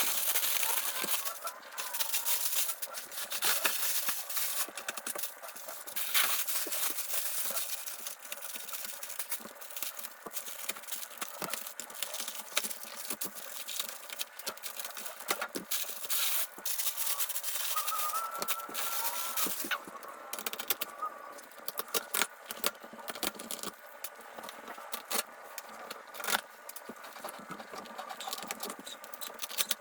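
Cardboard shipping box and packing material being opened and handled: continual rustling, scraping and rattling with many small knocks and a few brief squeaks.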